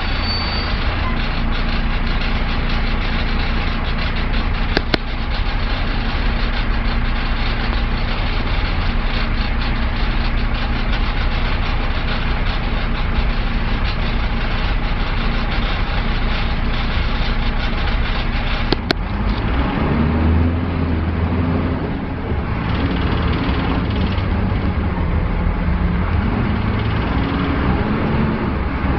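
Dennis Dart bus diesel engine heard from inside the saloon while the bus drives, a steady engine and road drone. About two-thirds of the way through, after a sharp click, the engine note changes and starts rising and falling: the strange revving through the gears.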